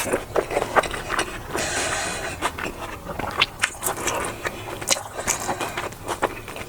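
Close-miked eating: biting and chewing with many short wet mouth clicks, and a brief scraping noise about two seconds in.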